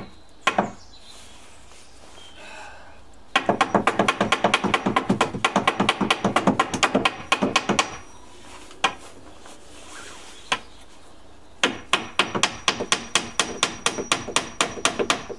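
Hammer driving small nails into pallet wood. A lone blow, then a run of quick, light taps, several a second, lasting about four seconds; two lone blows follow, then another quick run of taps from about twelve seconds in.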